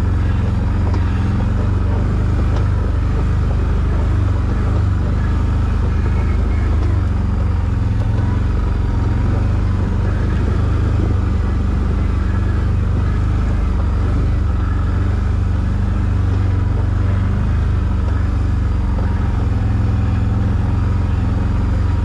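ATV engine running at a steady, even speed as the quad rolls along a rough trail, with no revving up or down.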